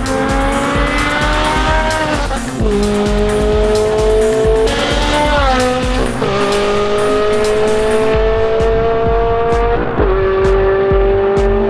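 Ferrari 360's flat-plane V8 under hard acceleration, pulling away through the gears. The engine note climbs steadily, then drops sharply at each of three upshifts, roughly every three and a half seconds.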